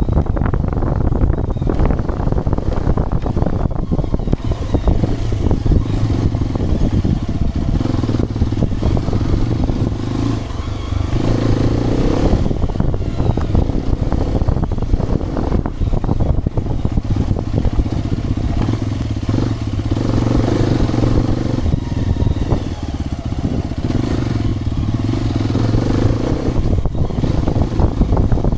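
Hero XPulse 210's single-cylinder engine running while the bike is ridden, its note rising and falling with the throttle and easing off briefly about ten seconds in and again about twenty-two seconds in. Wind noise and frequent knocks sound on the microphone throughout.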